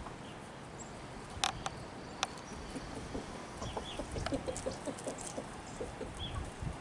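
A flock of chickens clucking softly as they forage, with many short low clucks coming thicker in the second half. Two sharp clicks stand out about a second and a half and two seconds in.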